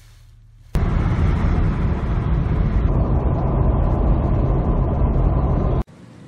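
Steady road and wind noise from inside a vehicle driving at speed while towing a travel trailer. It starts suddenly about a second in and cuts off suddenly near the end.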